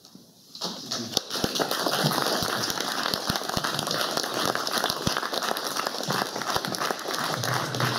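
Audience applauding, starting about half a second in and continuing steadily as a dense patter of many hands clapping.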